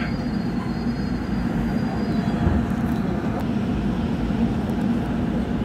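Incheon Metro Line 1 train with Alstom IGBT-VVVF traction, heard from inside the car as it pulls slowly out of an underground station: a steady rumble of the running gear and motors, with no clear rise or fall.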